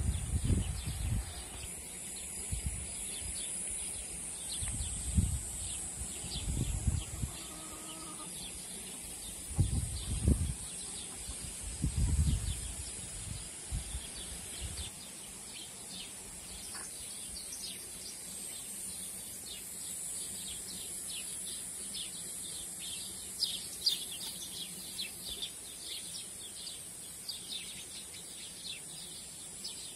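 Small birds chirping in quick short calls, thickest in the second half, over a steady high hiss. Low rumbles come and go during the first half.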